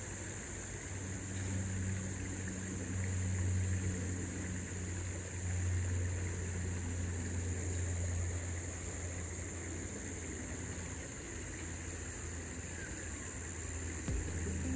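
A steady, low engine-like hum that holds one pitch throughout, with a constant high-pitched buzz above it.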